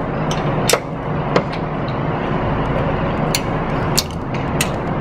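Click-type torque wrench tightening the cylinder-head studs of an air-cooled VW Type-1 engine to 20 foot-pounds, giving several sharp, irregularly spaced clicks over a steady low hum.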